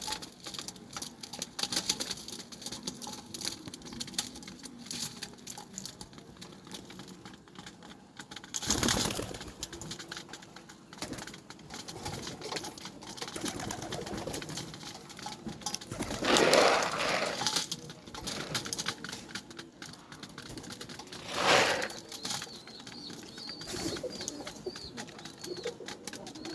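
Myna-beak domestic pigeons cooing, over a steady scatter of small clicks and rustles. Three louder bursts stand out: about a third of the way in, just past halfway, and about four-fifths through.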